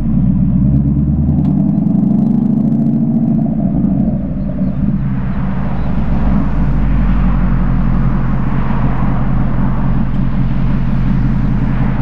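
2015 Mustang GT's 5.0 L V8 through an FRPP Sport exhaust, rising in pitch under acceleration for about three seconds, dropping around four seconds in, then settling into a steady low drone with tyre and wind noise.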